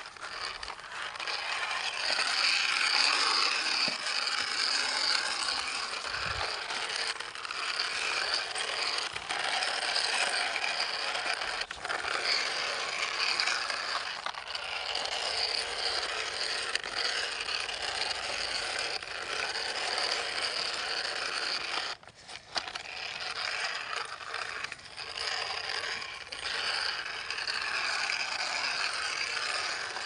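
Small plastic toy dump truck pushed by hand over dirt and stones, its wheels and plastic gears making a steady whirring, clicking rattle, with a short break about two-thirds of the way through.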